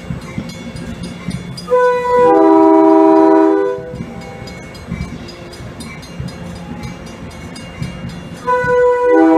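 MBTA commuter rail train's multi-tone horn sounding two long blasts, over the low rumble of the train rolling past. The first blast lasts about two seconds; the second starts near the end.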